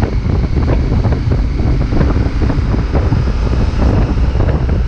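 Heavy wind buffeting the microphone: a loud, steady, gusting rumble.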